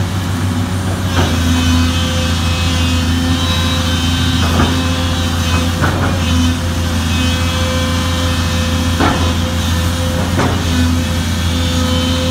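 Sunward SWE210ELR long-reach excavator's diesel engine running steadily while the machine digs and lifts its boom in mud. Short knocks come about five times, a second or more apart.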